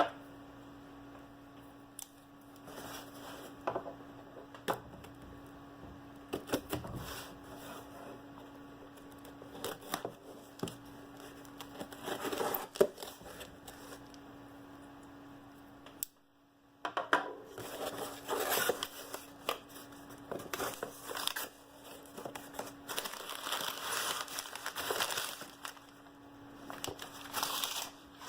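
Shipping package being opened by hand: irregular tearing and crinkling of packing material with scattered clicks and handling knocks.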